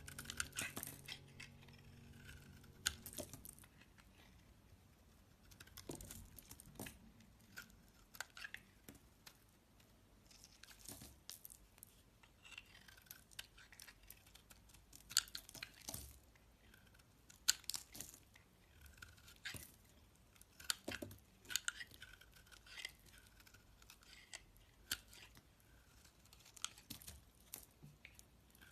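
Knife cutting through soap: irregular crisp scraping and crunching strokes, a few seconds apart.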